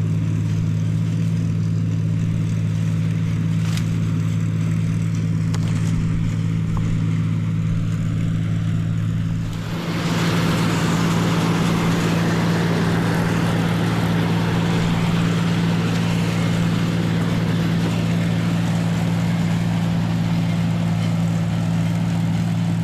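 Tractor engine running at a steady speed while picking corn with a mounted two-row corn picker. About ten seconds in, a louder rushing noise joins the engine and continues.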